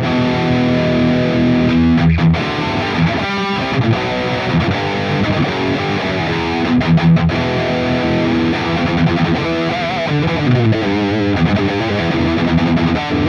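Strinberg electric guitar played through heavy metal distortion: held distorted chords and single notes, with a stretch of notes that waver up and down in pitch around ten seconds in.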